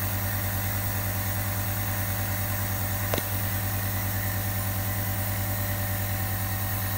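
Nebulizer's compressor running with a steady hum, delivering medicine mist into the box. A single brief click about three seconds in.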